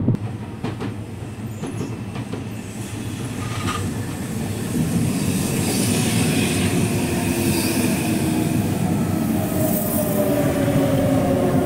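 Meitetsu electric commuter train running in along the platform. Wheels rumble on the rail, growing louder from about four seconds in, with a high squeal from the wheels. In the second half several motor tones slide steadily downward as the train brakes for the stop.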